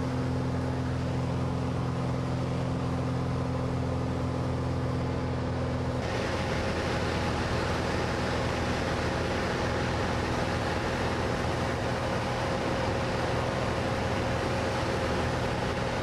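Cessna light aircraft's piston engine and propeller droning steadily, heard from inside the cabin with rushing air. About six seconds in the sound changes abruptly: the engine's tone shifts and the hiss of rushing air grows louder.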